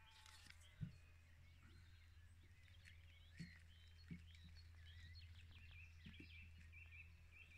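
Faint outdoor birdsong: many short chirps and warbles over a low steady hum, with a few soft knocks.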